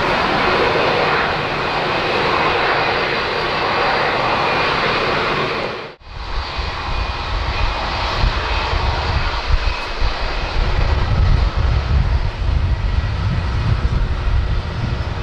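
The Rolls-Royce Trent XWB engines of an Airbus A350-900 running as the airliner rolls slowly along the runway after landing: a steady jet rush with a faint whine. About six seconds in the sound cuts out for a moment, then returns with a heavier low rumble under the same steady whine.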